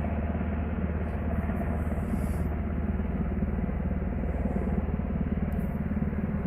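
Steady low engine rumble with a fast, even throb that holds at the same level throughout.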